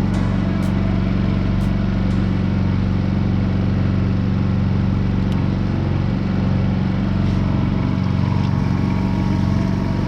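Honda EU2000 inverter generator running steadily and powering a window air conditioner. The low hum shifts slightly about eight seconds in, as the air conditioner comes on and loads it.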